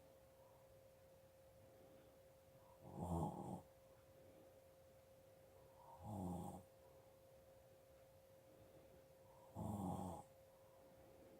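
Snoring: three snores about three seconds apart, each about half a second long, over a faint steady hum.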